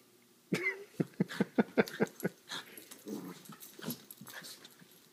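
Puppies play-fighting, making short, quick vocal sounds in a fast run of about five a second, then softer, lower ones.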